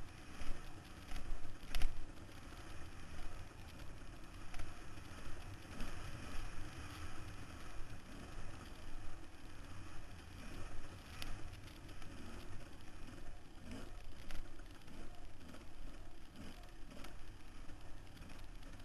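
Off-road dirt bike being raced over a rough desert trail, heard from a helmet camera: engine and wind noise that swells and falls as the throttle and terrain change, with a few sharp knocks from bumps, the loudest about two seconds in.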